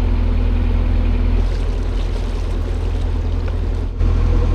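Narrowboat engine running steadily under way, a constant low drone.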